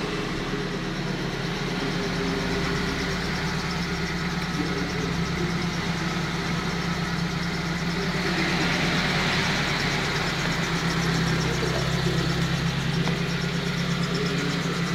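Petrol engine of a 2017 Mitsubishi Colt T120SS pickup idling steadily.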